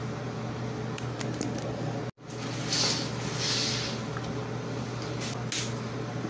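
Steady low hum of room background noise, with light clicks and two brief bursts of rustling close to the microphone about three seconds in, as the phone is handled; the sound drops out for an instant just before the rustling.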